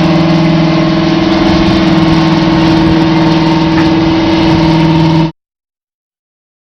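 Big Bud 747 tractor's 16-cylinder Detroit Diesel engine running loud and steady at a constant speed, then cut off abruptly about five seconds in, followed by silence.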